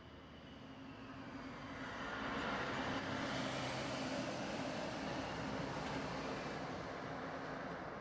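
Rushing noise of a passing vehicle with a faint low hum, swelling over the first few seconds and then slowly fading.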